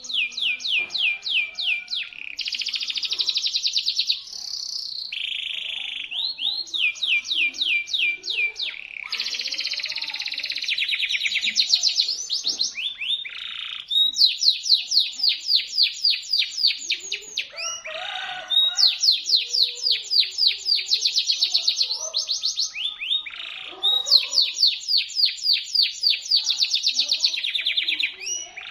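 Canary singing in shrill, fast rolling trills of rapidly repeated notes, one phrase after another with short breaks between them.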